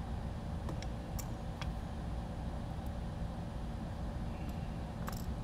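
Steady low background rumble, with a few light clicks as a small Phillips screwdriver drives a pointed self-tapping screw into a 3D-printed plastic drone canopy. The clicks come about a second in and again near the end.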